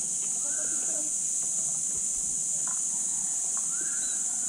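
Insects buzzing in a steady, high-pitched drone, with two faint whistled calls, about a second in and near the end.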